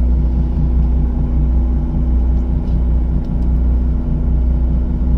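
A boat's engine running with a steady low rumble, heard from the deck.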